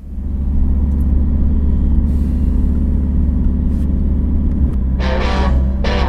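A loud, steady low rumble, like a running vehicle, that starts abruptly. Near the end come two brief higher-pitched sounds with several tones.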